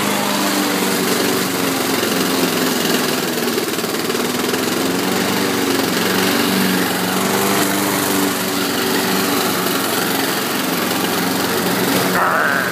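Lawn mower engine running steadily, its pitch shifting slightly now and then. A voice shouts briefly near the end.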